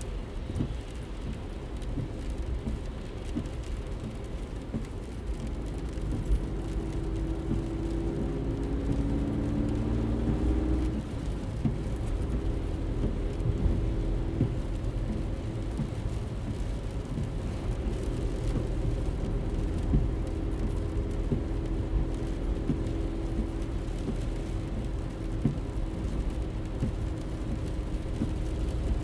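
Car driving, heard from inside the cabin: a steady low engine and road rumble with small knocks from the road. The engine note changes pitch several times about seven to eleven seconds in, then settles into steady cruising.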